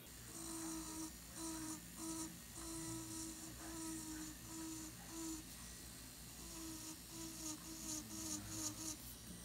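Electric nail drill with a fine bit buffing away loose skin beside the nail. Its whine comes in short strokes of under a second as the bit touches the skin, about a dozen in all, with a pause of about a second past the middle.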